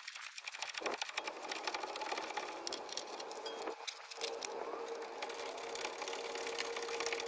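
Hand ratchet clicking rapidly as its socket runs out the caliper mounting bracket bolts, already broken free with a breaker bar. A faint steady hum comes in about three seconds in.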